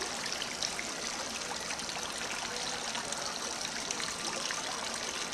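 Tiered courtyard fountain: water spilling from the scalloped upper bowl and splashing steadily into the basin below.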